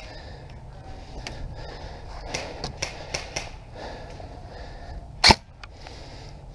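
Scattered faint sharp clicks of airsoft gunfire across the field, with one loud short burst about five seconds in.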